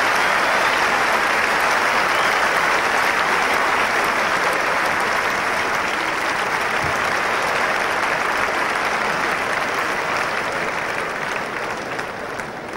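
Crowd applauding steadily in a large stadium, the applause dying away over the last couple of seconds.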